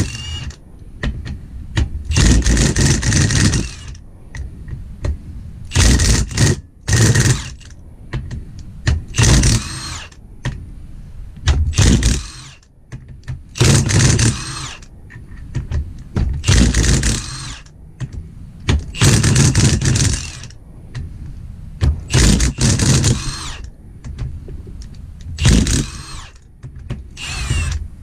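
Cordless impact wrench running in short hammering bursts of about a second, around ten times, each one undoing one of the bolts that hold the ring gear to the differential.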